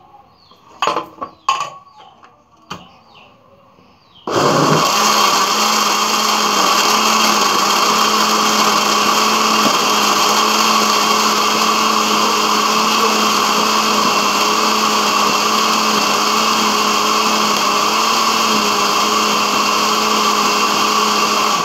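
A few knocks, then an electric countertop blender with a stainless-steel jar starts about four seconds in and runs steadily at one speed, blending milk, dates and mango with ice into a milkshake. It is switched off right at the end.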